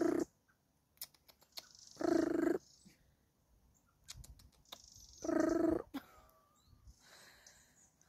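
A woman imitating an alarm-like bird call with her voice: three short, steady-pitched notes about two to three seconds apart, with runs of quick clicks between them.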